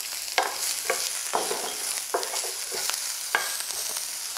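Diced onion sizzling in hot oil in a frying pan, stirred with a wooden spoon whose strokes scrape and tap the pan about twice a second over a steady hiss.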